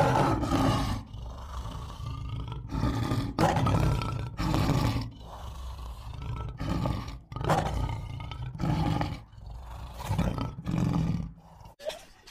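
Lion roaring: a bout of deep, repeated roars and grunts, about one a second, that stops near the end.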